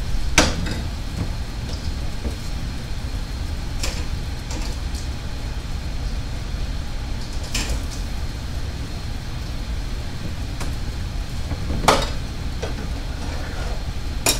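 Dishes and utensils being handled on a kitchen counter: a handful of sharp clicks and knocks a few seconds apart over a steady low hum.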